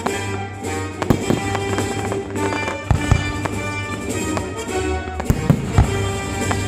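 Fireworks bursting over the show's music soundtrack: sharp bangs and crackles scattered through, several close together a little past the middle, over steady music.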